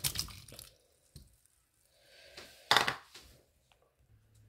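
Chopped tomatoes tipped by hand from a bowl into an aluminium pressure cooker of dal and water, landing with a wet splash, followed by another short loud burst about three seconds in.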